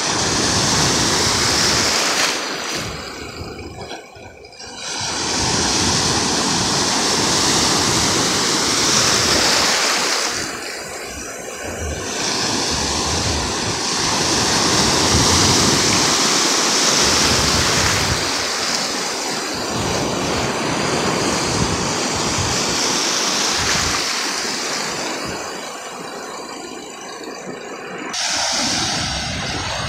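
Ocean surf breaking and washing up the shallows in a loud, steady rush that swells and eases as each wave comes in, with a few short lulls between waves.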